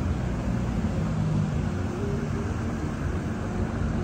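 Steady road traffic with vehicles driving slowly through floodwater on a flooded road: engines running with a low hum under a constant wash of tyre and water noise.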